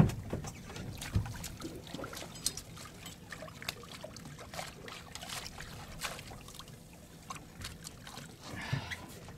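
A hooked ray splashing at the water's surface alongside a boat, then water splashing and dripping as it is grabbed and hauled up over the side. A sharp, loud hit right at the start and another about a second in, then scattered small knocks and splashes.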